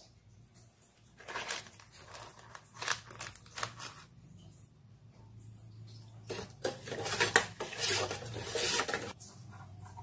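A metal spoon scooping cornstarch out of a crinkly paper-and-plastic packet in short bursts. Then, from about six seconds in, the spoon scrapes and clinks against a stainless steel pot for about three seconds as the starch is stirred into milk.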